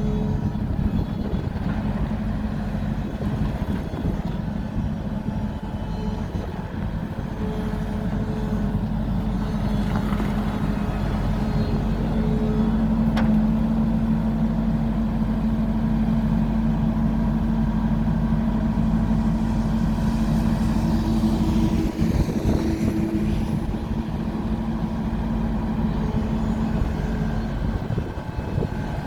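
Mini skid steer loader's engine running steadily, with fainter higher-pitched tones coming and going over it.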